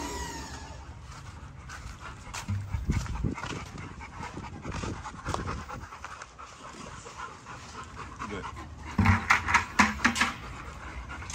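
A dog panting close to the microphone in quick repeated breaths, louder near the end.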